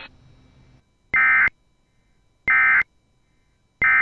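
Emergency Alert System end-of-message signal: three short bursts of SAME digital data tones, each about a third of a second long and a little over a second apart. They mark the end of the alert.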